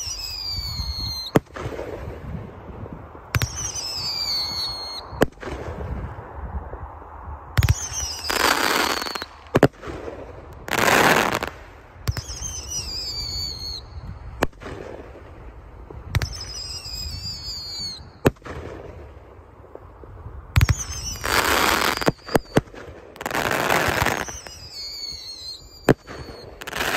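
Mad Ox High Octane 500-gram firework cake firing its shots in sequence: whistles that each fall in pitch, sharp bangs from the launches and bursts, and stretches of crackle lasting about a second.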